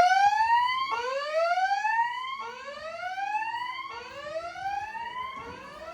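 Fire alarm voice-evacuation speaker sounding a whoop tone: a series of rising whoops, a new one about every second and a half, growing fainter toward the end.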